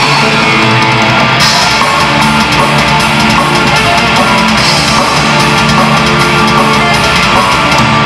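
Heavy metal band playing live: electric guitar, bass guitar and drum kit, with keyboards on stage, playing steadily and loud without a break.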